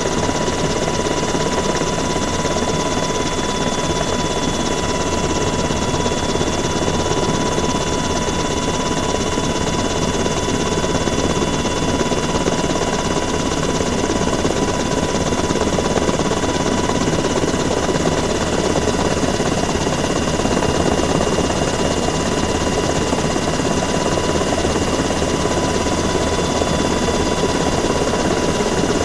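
Helicopter noise: a steady engine and rotor drone with a constant high turbine whine, unchanging throughout.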